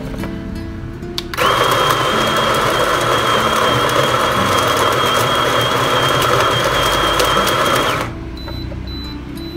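Electric coffee grinder grinding coffee beans for espresso on a timed 6.5-second dose, starting about a second and a half in and cutting off sharply near the end, with a steady high whine over the grinding.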